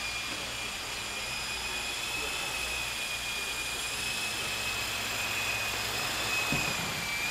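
Electric Art-Tech 400-class coaxial RC helicopter in flight: a steady high whine from its motors and rotors, the pitch wavering slightly as the throttle changes.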